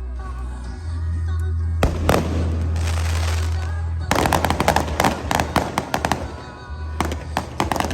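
Aerial fireworks going off: a single loud bang about two seconds in, then a long run of rapid crackling bursts from about four seconds in, with music playing underneath.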